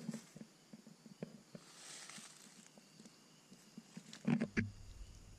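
Faint footsteps and handling noise in dry fallen leaves: scattered soft rustles and clicks, with a louder burst of rustling and knocks about four seconds in.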